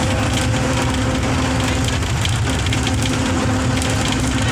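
Bus engine and road noise heard from inside the passenger cabin: a steady low rumble with a steady hum running through it.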